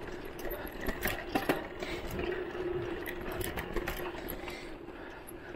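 Voltbike Enduro electric mountain bike's motor whining steadily while riding, with clicks, knocks and rattles from the bike going over a bumpy dirt trail; a few sharp knocks come about a second in.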